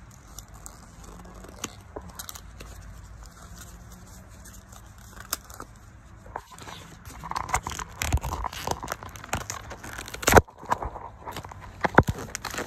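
Foil booster-pack wrapper crinkling and tearing open. The crackle thickens about halfway through, and a few sharp knocks near the end are loudest.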